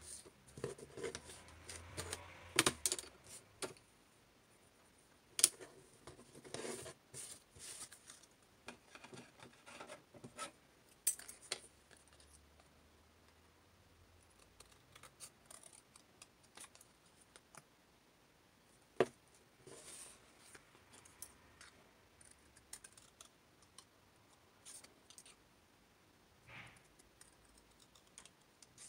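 Pencil scratching on thin card, then scissors snipping through the card in short, irregular cuts, busiest in the first part with sparser snips later.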